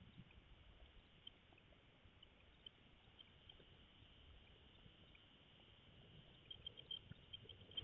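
Near silence: faint steady hiss with scattered small clicks, several coming in quick succession near the end.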